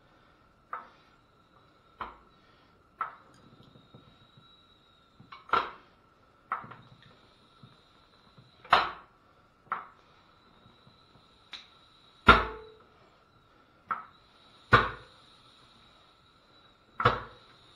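Floor jack being pumped to press against a tire strapped to its steel wheel to break the bead: about a dozen sharp clacks and creaks, one every second or so, the loudest about two thirds of the way through.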